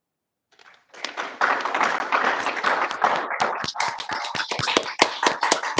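Applause from several people clapping into their own microphones over a video call, starting about a second in: a dense wash at first, thinning to scattered separate claps.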